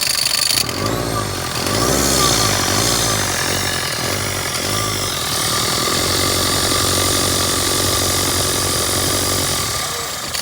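Mercedes-Benz Sprinter 313 CDI diesel engine revved up and down about four times, then held at a steady higher speed and let back down near the end. The van's front-of-engine noise was traced to the alternator.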